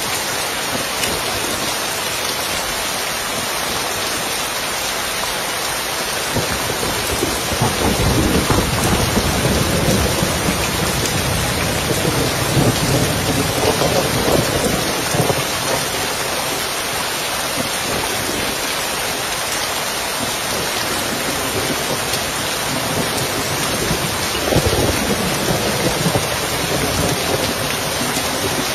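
Steady rain falling on a roof. A long roll of thunder rumbles in about a quarter of the way through and dies away over several seconds, and a shorter roll follows near the end.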